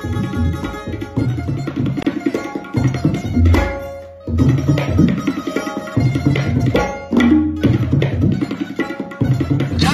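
Background music with a fast hand-drum rhythm under held melodic notes, breaking off briefly about four seconds in before resuming.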